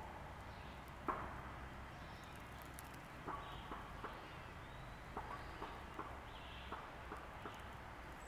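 Faint outdoor background with scattered soft clicks and ticks, about one a second or less.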